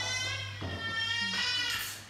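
A baby monkey giving two long, high-pitched wavering cries, with a sharp breath between them about half a second in.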